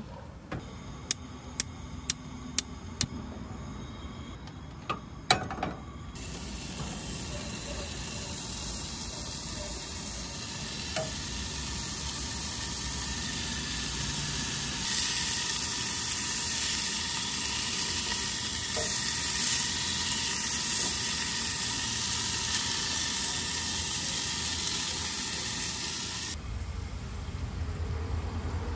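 Bacon-wrapped pieces of lake trout sizzling as they fry in a small pot on a propane camp stove, turned now and then with tongs. A run of sharp clicks comes first as the stove is worked, then the sizzle starts suddenly, grows louder partway through, and stops abruptly near the end.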